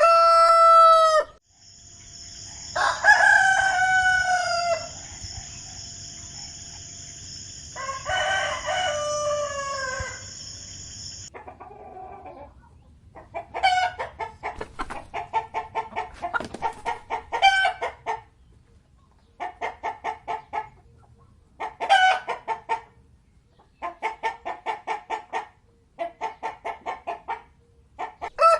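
Chickens: a rooster's crow ends just after the start, two more crows follow over a steady high-pitched buzz, and then comes a long run of rapid clucking in separate bursts.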